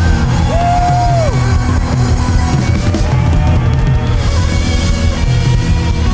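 Loud rock-style worship music with a drum kit and electric guitar, with one held high note about half a second in.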